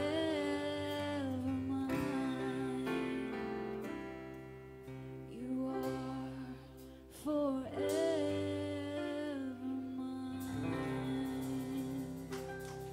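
Live worship band playing a slow song: a woman sings long held notes over acoustic guitar, bass, keyboard and drums, with a few sharp hits. The music eases off in loudness near the end.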